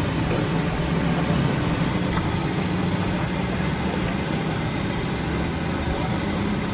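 Wok burner flame burning with a steady low rumble under a wok, with chopped garlic, shallots and chilli frying in oil and a few faint clicks of a metal spatula against the pan.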